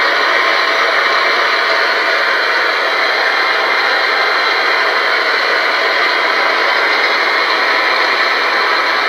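Steady, loud radio static hiss from a spirit box, the white-noise radio sweep used to listen for spirit voices.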